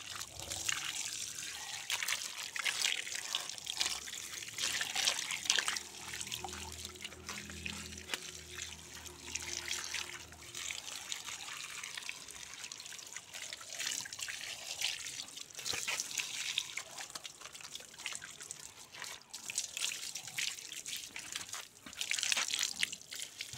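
Water pouring from a garden hose, splashing and trickling into soil-filled plant pots and onto the ground.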